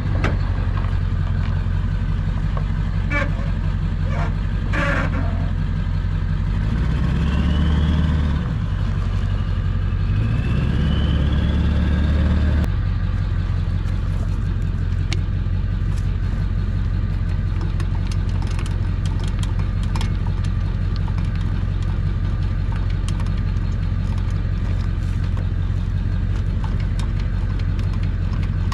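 Pickup truck engine idling steadily, revved up twice between about 7 and 12 seconds, then dropping sharply back to idle. A few sharp clicks or knocks sound in the first five seconds.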